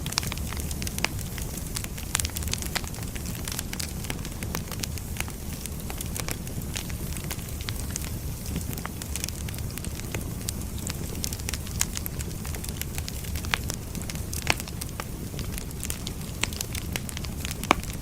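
Wood fire burning with a steady low rumble and frequent crackling pops, a few louder snaps standing out, one near the end.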